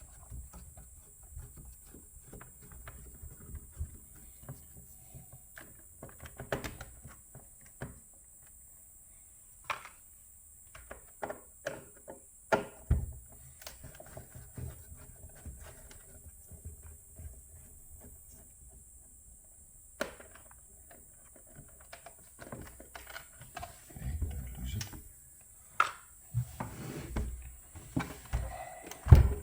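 Scattered clicks, taps and knocks of screws, a screwdriver and plastic panels being handled while an espresso machine is taken apart, busiest near the end.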